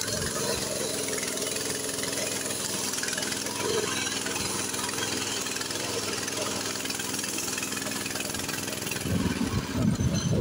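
Walk-behind tractor engine of a homemade trike running steadily, growing louder and rougher about nine seconds in.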